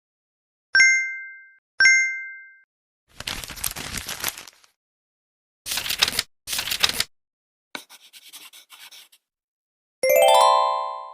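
A string of separate short sound effects: two identical bright bell-like dings about a second apart, then a few noisy, hissing or rustling effects, and near the end a run of chime notes falling in pitch.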